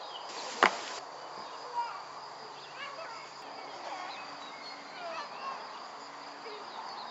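Outdoor summer ambience: insects keep up a steady high-pitched chirring, with scattered short bird chirps over it. A single sharp click sounds a little over half a second in.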